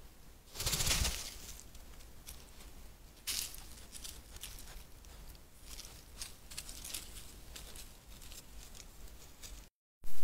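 European badger rummaging right against the trail camera: close rustling and scratching as its fur brushes the microphone, loudest in a rub about half a second in. The sound drops out briefly near the end.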